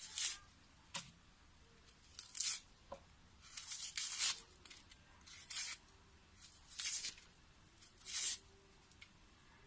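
Dry papery skin being peeled off a small red onion: a series of short crackly tearing rips with pauses between them.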